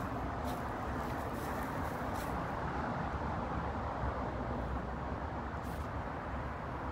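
Steady outdoor background noise: a low, even rumble with a few faint soft knocks.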